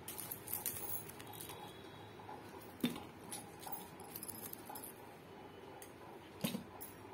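Stationery being handled and set down on a box lid: a ruler in a plastic sleeve and pens laid down, with light rustling and small clicks. Two sharper taps, about three seconds in and near the end.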